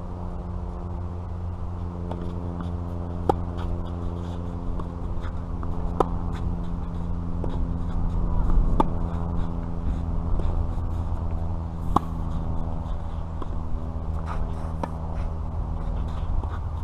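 Tennis ball struck by rackets in a rally: sharp pops about every three seconds, with fainter hits and bounces in between, over a steady low hum.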